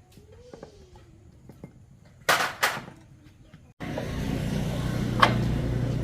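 Two short, loud hissing bursts, then from a sudden change a little before four seconds in, a small motorcycle engine running steadily at idle.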